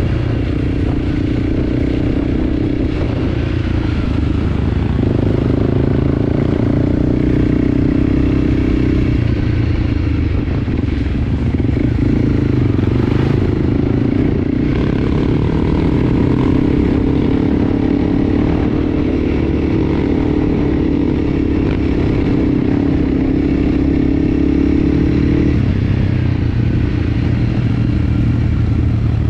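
Enduro dirt bike engine running under way, its note holding steady and shifting in pitch a few times as the throttle changes, with some rattling.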